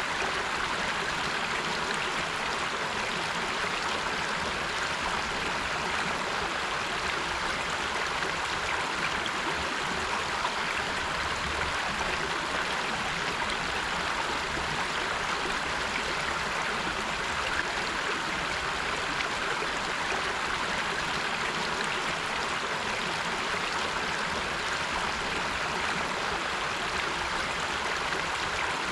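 River water flowing over rocks: a steady, even rush of moving water.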